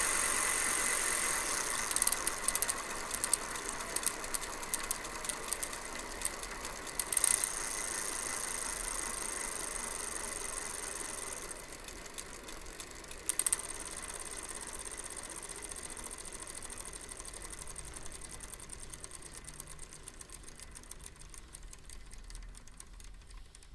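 Shimano Nexus 7 (SG-7C18) internal gear hub freewheeling as the rear wheel coasts down: a steady whir with the fast ticking of a ratchet, growing fainter as the wheel slows. A few sharper clicks come in the first several seconds and once more about halfway. The hub runs on oil instead of its original grease, which the owner says gives it a more ringing sound.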